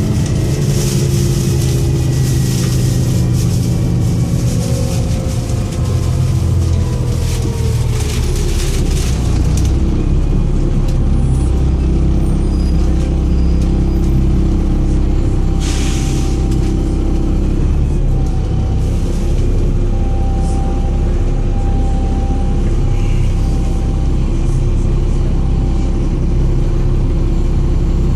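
Volvo B7TL double-decker bus's diesel engine running, its pitch falling over the first several seconds and then holding low and steady, with hissing early on and a short sharp hiss about two-thirds of the way through. The engine sounds rough and over-revs with a loud turbo hiss, which the owner puts down to a bad turbo leak.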